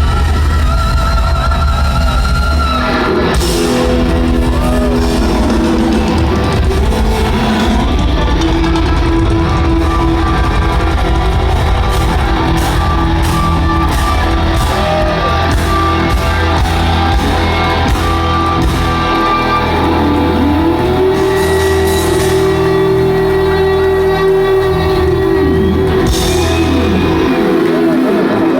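Live rock band playing loudly: an electric guitar holds long sustained lead notes with slow bends and a rising glide, over bass and drums, echoing in a large hall.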